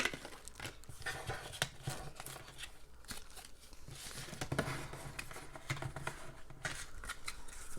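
Trading cards being handled and sorted: faint rustles and small clicks as the cards slide and tap against each other.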